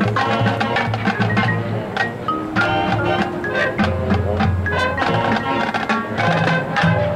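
High school marching band playing: held brass chords over rapid drum and percussion strikes.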